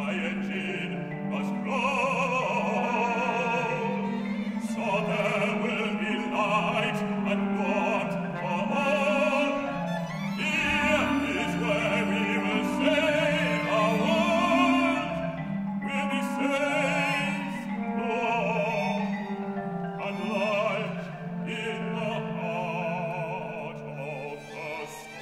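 Live orchestral music from an oratorio: a chamber orchestra with operatic singing held on long notes with vibrato, over a repeating low figure in the bass.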